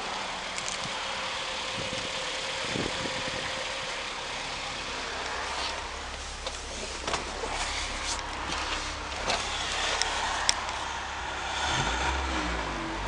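Mitsubishi Lancer's 2.0-litre 4B11 four-cylinder engine idling steadily, with a few clicks and knocks from handling in the cabin. Near the end the engine is revved, its pitch rising and falling.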